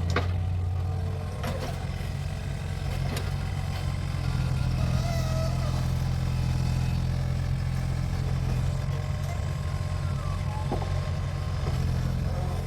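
Mini excavator's diesel engine running steadily under work, with a few sharp metallic clanks from the machine, the clearest near the start and one near the end.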